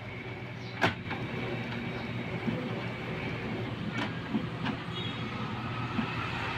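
Epson L3150 inkjet printer running its power-on initialization, its motors whirring steadily. Sharp clicks come about a second in and about four seconds in, the first the loudest.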